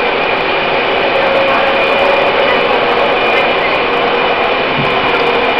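Taipei Metro C321 subway train running through a tunnel at steady speed: a continuous roar of wheels on rails under a steady whine from the train's running gear.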